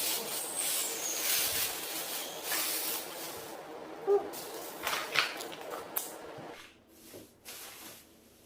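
Rustling and crinkling of plastic bags and packaging as food items are handled and taken out of a box, with sharp clicks or knocks about four and five seconds in; the handling dies down after about six and a half seconds.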